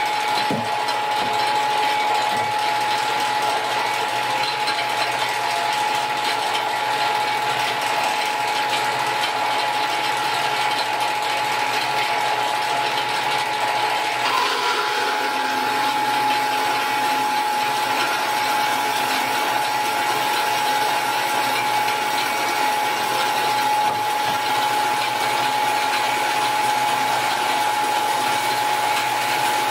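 Horizontal metal-cutting band saw running and cutting down through a metal workpiece clamped in its vise. It makes a steady whine over the rasp of the blade, and the sound shifts slightly about halfway through.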